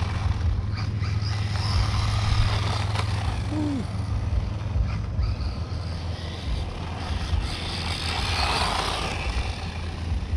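Small brushless RC truggy with a 2845 brushless motor driving on asphalt, its motor and tyres growing louder and fading as it runs about, loudest about eight seconds in, over a steady low rumble.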